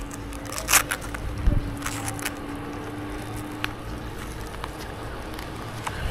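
Rope-access gear handled in gloved hands: a few sharp clicks and rustles as the rope is worked, over a steady low rumble.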